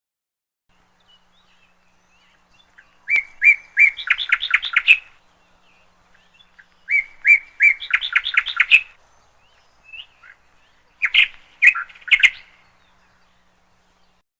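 A bird singing: twice, a phrase of a few separate chirps that speeds up into a quick run of notes, then a shorter group of chirps near the end.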